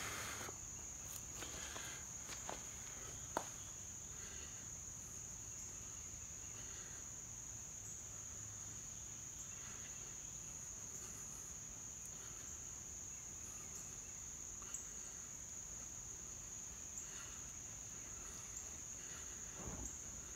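A steady, high-pitched drone of insects in the background, with a single sharp click a few seconds in and a few fainter ticks.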